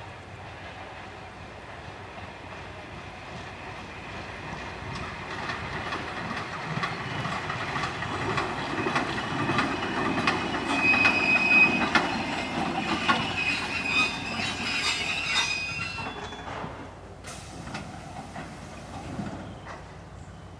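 DRB1m diesel multiple-unit train approaching and passing at speed, growing louder to a peak about halfway and then falling away as the coaches roll by. Wheels clatter over the rail joints, with a brief high wheel squeal near the loudest point.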